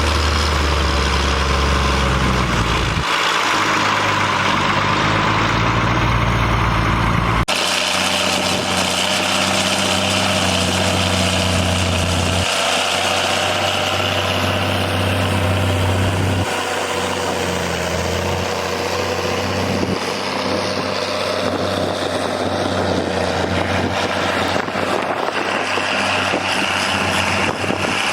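Ford TW25 and John Deere 3640 tractors' diesel engines running while ploughing, heard in a string of short clips; the engine note changes abruptly at each cut, about four times.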